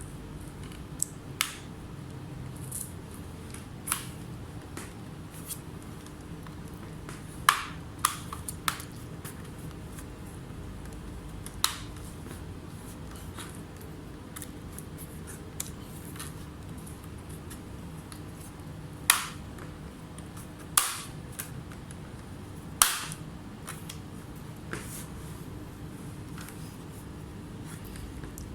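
Scattered sharp clicks and taps of tools and laptop parts being handled on a repair bench, about a dozen over the stretch and irregularly spaced, the loudest few ringing briefly, over a steady low hum.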